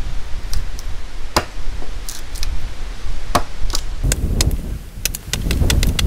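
Small axe chopping into the end of a wooden roof spar stood on a wooden block, hewing one side down. A few sharp chops come a second or two apart, then a quick run of lighter strikes, several a second, near the end.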